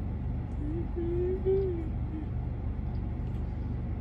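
Steady low hum of a car engine idling, heard from inside the car. About a second in, a person gives a short hummed "mmm" that rises and falls.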